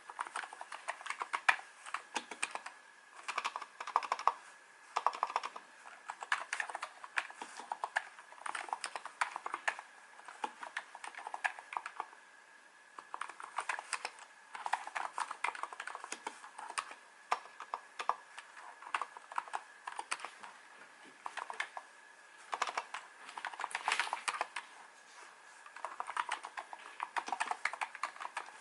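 Typing on a NiZ Plum 87-key electrostatic capacitive keyboard with light 35 g keys: quick, uneven runs of keystroke clicks in bursts, broken by brief pauses.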